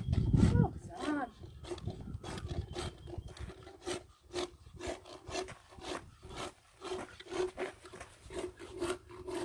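Hand-held equine dental float (rasp) filing a horse's teeth: a rhythmic back-and-forth rasping at about two to three strokes a second.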